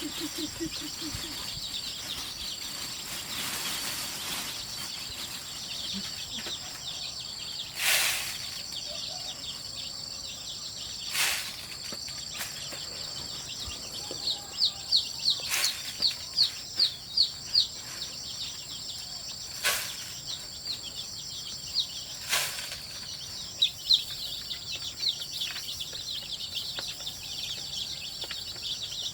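Young chickens peeping in quick runs of short high chirps, over a steady high-pitched insect drone. A few sharp knocks come at intervals.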